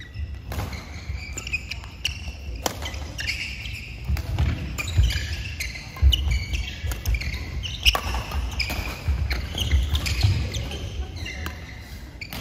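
Badminton doubles rally: sharp racket-on-shuttlecock hits every second or two, with sneakers squeaking and thudding on the court mat between shots.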